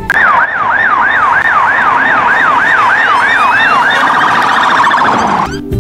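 Police car siren wailing in a fast yelp, sweeping up and down about three times a second, then switching about four seconds in to a much faster warble before cutting off.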